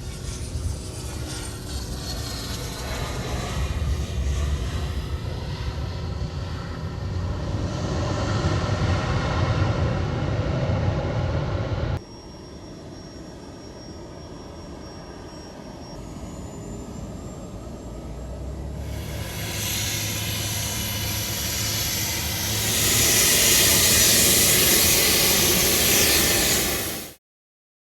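Business jet's turbofan engines running, with a high whine that falls in pitch early on and a building roar. It cuts suddenly about halfway to a quieter jet sound, which swells to its loudest near the end before cutting off abruptly.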